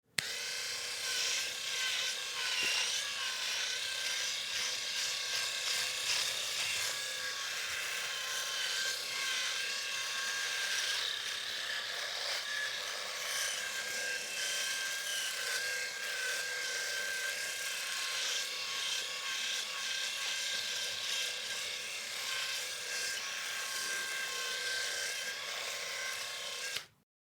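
Electric razor with five-year-old blades running: a steady buzz with a rasping high edge that switches on abruptly and cuts off abruptly after about 27 seconds.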